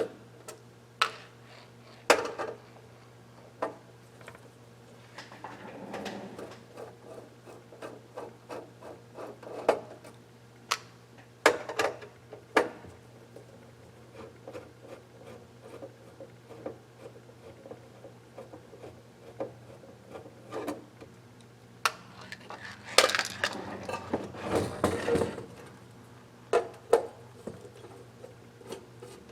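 Hands and tools handling an electronic I/O unit on a workbench during disassembly: scattered clicks, taps and rubbing, with a burst of louder rattling handling about 23 to 25 seconds in, over a steady low hum.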